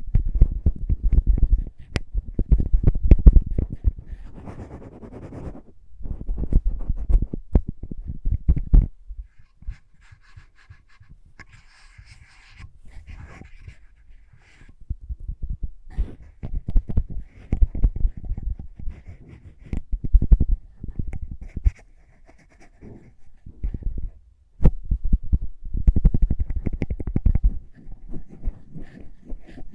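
Close-miked ASMR lip and mouth sounds with lip balm: clusters of sticky, wet clicks and smacks with breath noise, coming in bursts of a few seconds with short quieter pauses between them.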